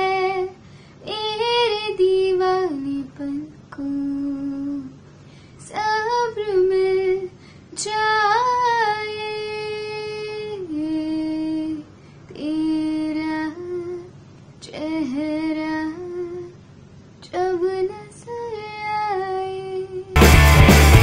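A woman singing a Hindi song unaccompanied, in phrases a second or two long with short pauses between them. About a second before the end, loud rock music cuts in.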